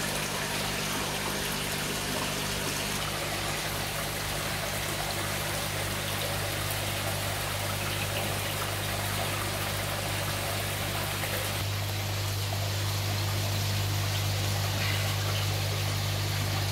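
Fish-tank aeration and filtration: air bubbling and water trickling over a steady low pump hum. The hum gets louder about two-thirds of the way through.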